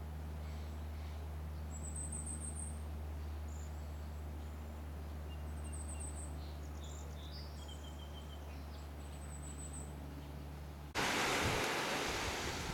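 Small birds chirping: a short high trill three times, with scattered calls, over a steady low hum. About eleven seconds in it cuts to ocean surf and wind buffeting the microphone, much louder.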